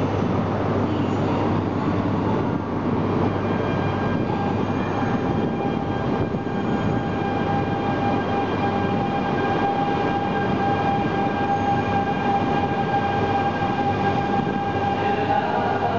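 Train noise at a station platform: a dense, steady rumble, with a steady high whine coming in about four seconds in.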